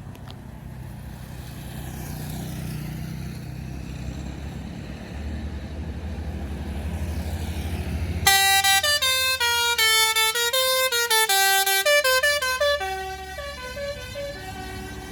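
Bus engine rumble growing louder, then about eight seconds in a basuri melodic bus horn plays a fast tune of stepping notes, loud for about four and a half seconds, with fainter horn notes continuing after it.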